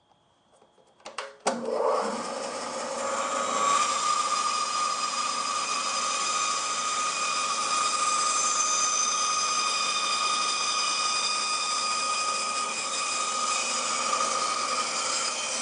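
Bandsaw switched on about a second and a half in, its motor and blade then running steadily with a fixed whine while a small piece of timber is fed into the blade to cut a half-lap joint down to a scribed line.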